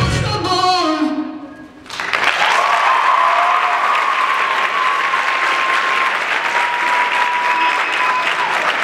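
A pop song ends in the first second or so, and about two seconds in an audience breaks into loud, sustained applause and cheering. A long, steady whistle rings out over the clapping for most of the applause.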